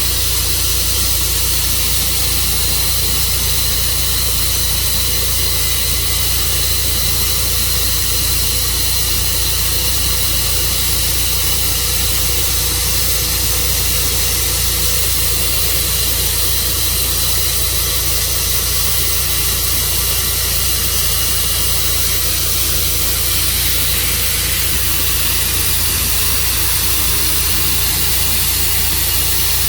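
Tru Cut portable sawmill running steadily: an even mechanical noise with a thin high whine, unbroken throughout.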